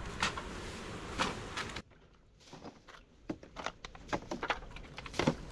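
Wind and surf haze with a few sharp clicks, then after an abrupt cut about two seconds in, a string of light clicks, knocks and crinkles as aluminium cans and other litter are picked off stones and dropped into a black plastic bin bag, the loudest knock near the end.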